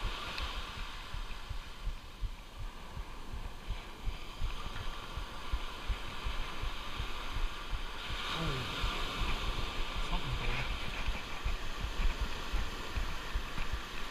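Wind buffeting a chest-mounted action camera's microphone in low, irregular thumps over a steady hiss of surf.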